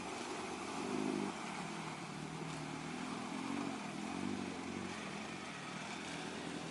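Off-road 4x4 vehicle engine running and revving up and down in uneven surges, the loudest about a second in.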